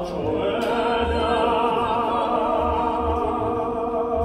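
Live musical-theatre singing on stage, heard from the audience: held notes with a wavering vibrato over instrumental accompaniment with a low, regular pulse.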